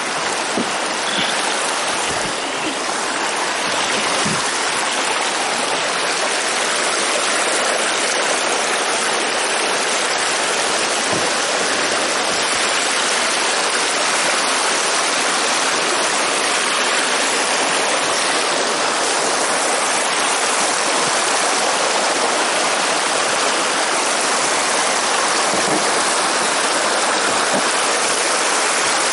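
Water rushing and spilling over a beaver dam of sticks in a small creek: a loud, steady hiss that grows a little louder a few seconds in.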